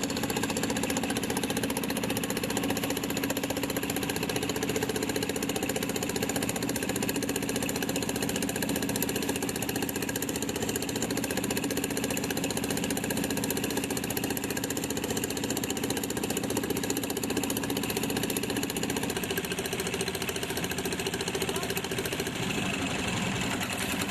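An engine running steadily at an even speed close by, with a slight shift in its pitch near the end.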